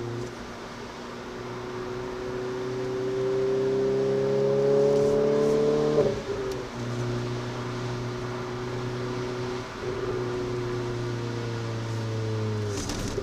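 Renault Clio RS 200 engine heard from inside the cabin, pulling up through the revs for about six seconds until an upshift drops the pitch suddenly. It then pulls on more steadily, and the revs fall near the end as the driver lifts off.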